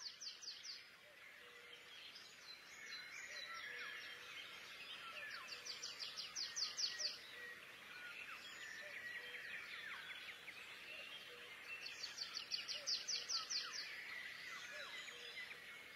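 Birds singing: a fast trill of repeated notes comes three times, near the start, about five seconds in and about twelve seconds in, with scattered chirps between.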